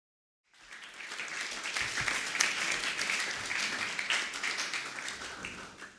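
Audience applauding: clapping starts about half a second in, holds steady, then dies away near the end.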